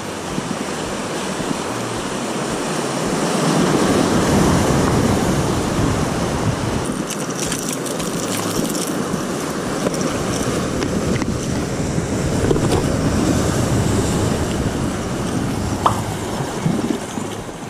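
Rough sea surging and washing over shoreline rocks, with wind buffeting the microphone. Around the middle come a few light clicks and rattles of a plastic lure box being handled.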